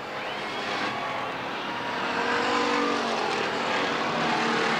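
Stock cars racing around a short oval track, several engines running hard at speed together with a steady, even level.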